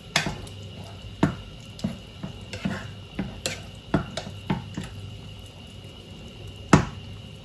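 A kitchen utensil knocking and clinking against a cooking pot in irregular strokes, about eight in all, the loudest near the end, over a steady low hum.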